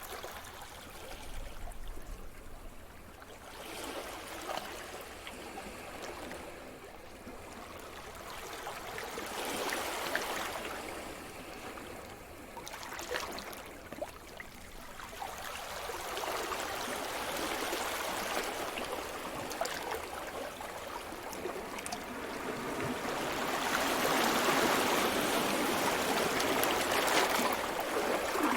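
Sea surf: waves washing in and drawing back, the hiss swelling and fading every few seconds and growing louder in the second half.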